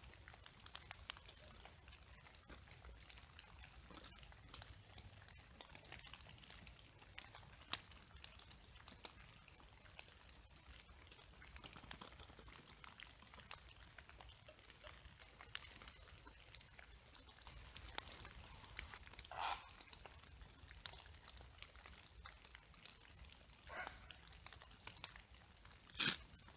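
Raindrops falling through the trees: a faint, irregular scatter of small ticks. Two short animal calls come about two-thirds through, and a sharp knock comes just before the end.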